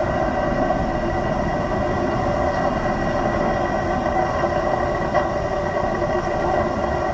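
Steady running noise inside a Seoul Subway Line 8 train car, with a constant hum and a thin steady whine.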